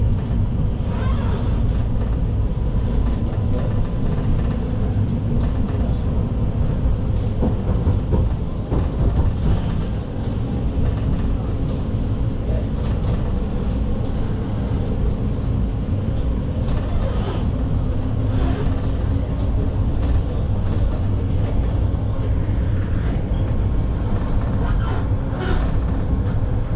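Cabin noise of a Vityaz low-floor tram under way: a steady low rumble with a faint steady hum and scattered light knocks and rattles.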